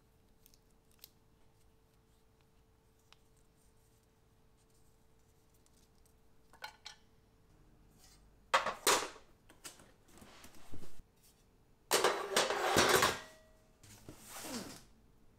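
Grey sheet-metal panels being lifted out of a cardboard box and set down on a wooden workbench: a few light clicks, then from about halfway in several loud clanks and scrapes, the longest about three-quarters of the way through.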